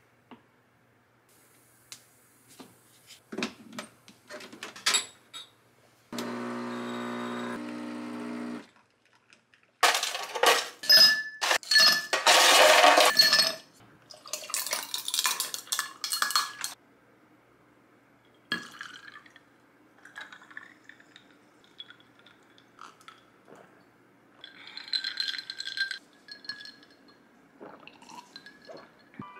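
Kitchen handling sounds while making an iced coffee drink: light taps and scrapes of ground coffee being dosed into an espresso portafilter, and a machine humming steadily for about two seconds. Then the loudest part, several seconds of ice cubes clattering and clinking against a glass, followed by water poured from a plastic bottle over the ice, with a few lighter clinks of ice later on.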